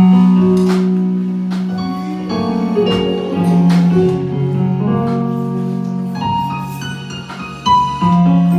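Soft keyboard music playing slow, sustained chords over a held bass note, with a simple melody moving above.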